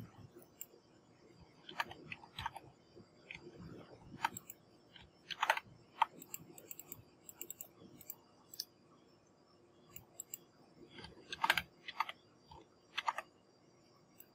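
Faint, scattered computer mouse clicks, a few sharp ticks at a time with short gaps between them.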